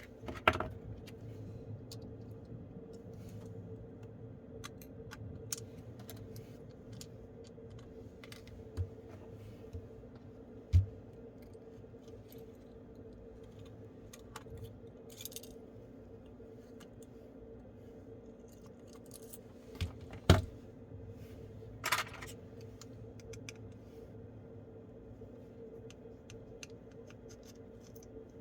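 Small hard clicks, taps and scrapes of a phone and small repair tools being handled, with a few louder knocks and one short scrape, over a steady hum.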